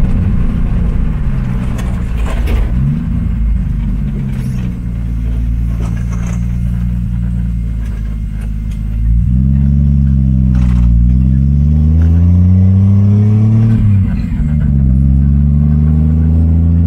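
Turbocharged Toyota 1JZ straight-six in a 1936 Morris 8, heard from inside the cabin while driving. The revs rise and fall several times, and the engine gets louder from about halfway in under acceleration, with a quick drop in revs a few seconds before the end.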